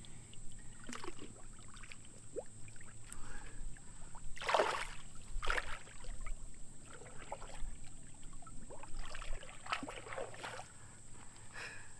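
Water splashing and sloshing in the river shallows as a catfish is held in the water and released, in several irregular splashes, the loudest about four and a half seconds in.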